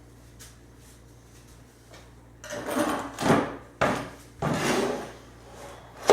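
Bench parts being handled and shifted during assembly: two long scraping, dragging sounds in the middle and a sharp knock near the end, with a few light taps before.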